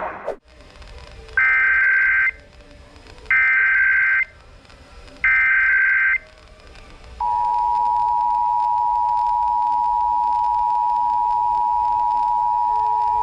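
Emergency Alert System SAME header: three short bursts of high data tones about a second apart. About seven seconds in they are followed by the steady two-tone EAS attention signal, which holds unbroken. This is the opening of an EAS test alert.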